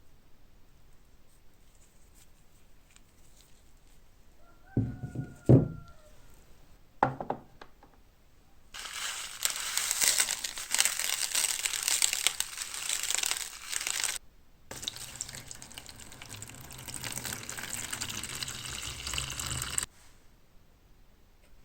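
Water hissing in a salt-solution rust-removal electrolysis bath, in two stretches of about five seconds each, the second with a low electrical hum under it. Before them come a few sharp knocks.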